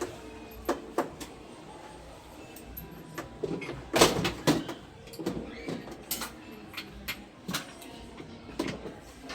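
Tools and parts being handled during repair work: irregular clicks and knocks, with a louder clatter about four seconds in.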